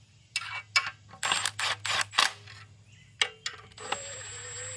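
Cordless impact driver running clutch pressure-plate bolts down onto the flywheel: several short bursts, then from about three seconds in a steady whine of the motor spinning.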